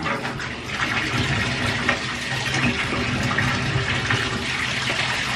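Water running steadily from a tap into a bathtub.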